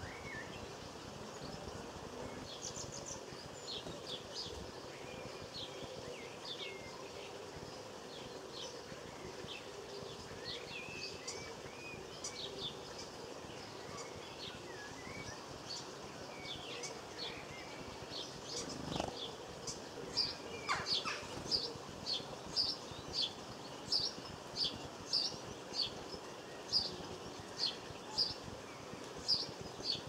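Small garden birds twittering and calling with scattered short chirps. About two-thirds of the way in, a house sparrow starts a regular run of loud single chirps, about two a second.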